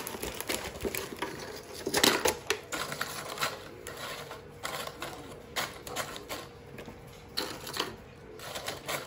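Irregular small clicks, taps and light clatter of crackers and food pieces being laid into the sections of a lidded platter tray.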